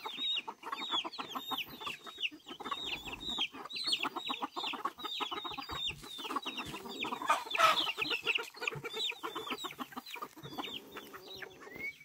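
A flock of chickens calling excitedly at feeding time: a continuous run of short high chirps that drop in pitch, several a second, over lower clucking. A little past halfway comes a brief rush as meal is poured from a bucket onto the ground.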